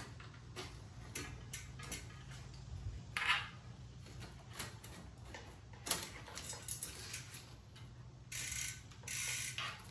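Mountain bike rear wheel being pulled out of the frame: scattered clicks and rattles from the axle, chain and derailleur. Near the end come two short runs of rapid ratcheting from the high-engagement Spank Hex hub freewheeling as the wheel turns.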